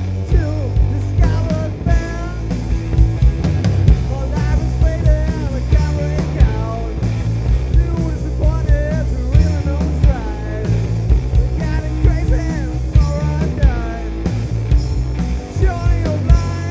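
Live hard rock band playing: a steady drum beat and bass underneath a melody line that bends in pitch.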